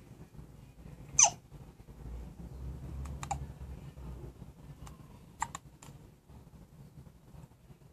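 A baby hiccupping: a few short, sharp hiccups about two seconds apart, the first the loudest.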